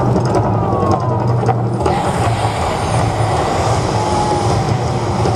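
Steady, loud low rumble of the Mirage volcano eruption show. About two seconds in, a hissing roar from the gas flame jets joins it as the fire effects burst up.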